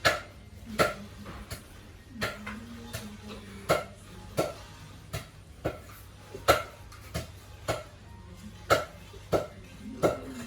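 Pigs giving short, sharp grunts, one after another about every two-thirds of a second.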